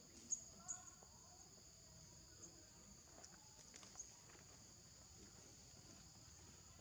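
Steady, high-pitched insect drone of a forest chorus, with a few sharp clicks, the loudest about a third of a second in.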